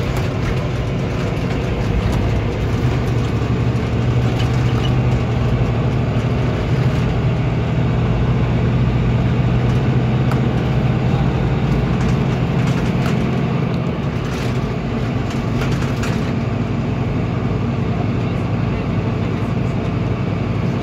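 Cabin sound of a Volvo B9R coach cruising at speed: the steady hum of its six-cylinder diesel with tyre and road noise, and a few short clicks and rattles near the middle.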